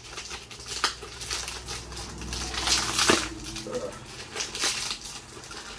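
A heavily taped package's wrapping being handled and pulled at: irregular crinkling and rustling with sharp crackles, loudest about halfway through.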